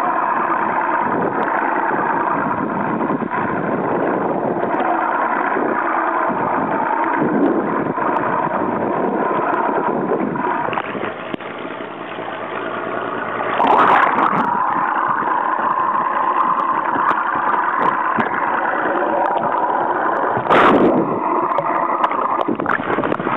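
Fishing boat's engine running steadily with an even hum, while the boat trolls. Two brief louder noisy bursts stand out, one a little past halfway and one near the end.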